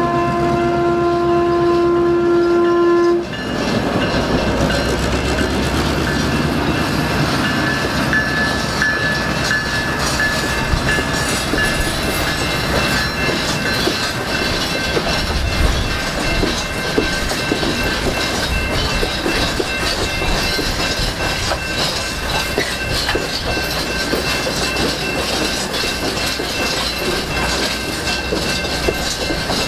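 A diesel switcher locomotive's horn sounds one steady note and cuts off about three seconds in. Then the locomotive and a string of heavy hot metal bottle cars roll over a road crossing with a steady rumble and clickety-clack of wheels on rail joints. A crossing signal bell rings underneath.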